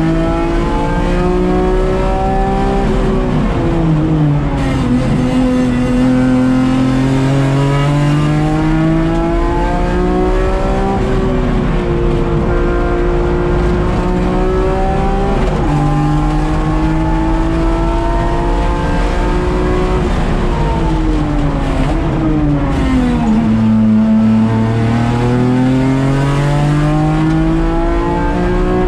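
A race car's engine heard from inside the cockpit under hard driving on track. It rises in pitch as the car accelerates, drops sharply twice at upshifts, falls gradually as the car slows, and climbs again near the end.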